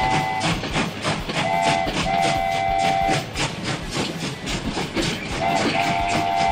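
Train sound effect: a chime whistle sounds a chord of several tones in repeated short and long blasts, over a steady fast clickety-clack of wheels on rail joints, about four to five clicks a second.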